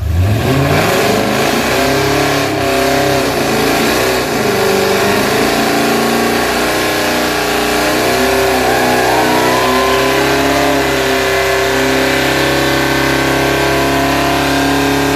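2003 Ford F-150 SVT Lightning's supercharged 5.4-litre V8, breathing through Kooks headers, running hard. The engine speed climbs sharply at the start, rises and falls several times, and holds steady near the end.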